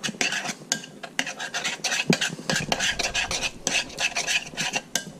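A utensil stirring an oily pesto sauce in a glass bowl, scraping and clinking against the glass in quick, irregular strokes.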